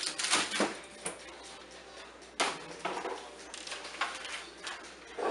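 Frozen-food packages being put into a plastic freezer drawer: plastic rustling in the first second, a sharp knock about two and a half seconds in, then a few lighter knocks and rustles.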